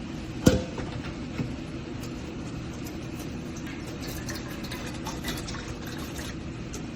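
Water heating toward the boil in a stainless steel percolator coffee urn: a steady low bubbling, with one sharp knock about half a second in.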